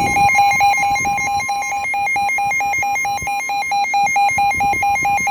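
NOAA Weather Radio receiver sounding its warning alarm: a rapid pulsing beep, about five a second, over the steady 1050 Hz warning tone. It signals that a severe thunderstorm warning is being broadcast.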